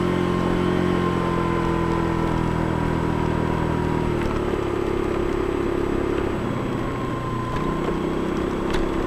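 Motor scooter engine idling steadily, its note shifting about four seconds in.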